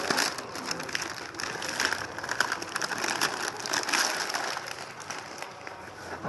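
Plastic packaging and a fabric air-conditioner cover crinkling and rustling in the hands as the cover is unpacked, an irregular run of small crackles.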